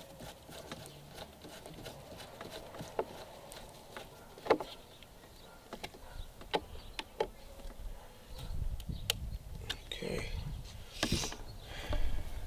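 Scattered small clicks and taps of hand work on an RC boat's steering linkage and fittings, with one sharper click about four and a half seconds in. A low rumble comes in about two-thirds of the way through.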